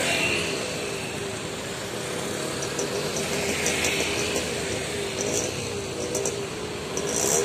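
Road traffic passing close by: light trucks and motorcycles driving past with their engines running and pulling away, the sound easing off in the middle and swelling again near the end.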